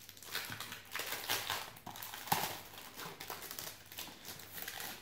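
Crinkling and rustling of a clear plastic bag being opened and a character sheet pulled out of it, with small handling clicks, one sharper about two seconds in.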